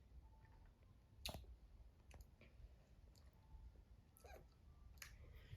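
Mostly quiet, with a few faint clicks and smacking mouth sounds from someone eating a caramel candy, one with a brief squeak about four seconds in.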